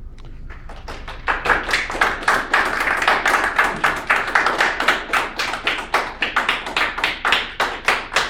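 A small audience applauding, the separate hand claps clearly distinct and coming about three or four a second. The clapping starts about half a second in and is at full strength within a second.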